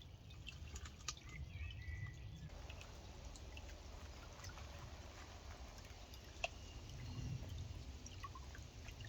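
Faint water trickling and dripping as a gold pan is worked in a shallow stream, with a few light clicks and one sharper click about two-thirds of the way through.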